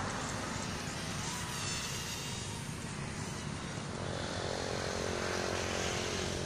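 Syma X20 mini quadcopter flying, its small propellers and motors giving a steady whine over a low rumble, the pitch shifting briefly about two seconds in.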